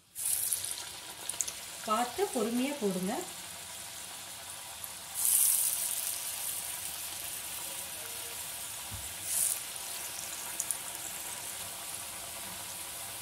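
Murukku dough spirals hitting hot oil in a kadai and deep-frying: a sudden sizzle as the first goes in, then a steady bubbling hiss, with a louder burst of sizzling about five seconds in as a second spiral is added. The dough is freshly in and still cooking, so the sizzle is vigorous; it dies down once the murukku is done.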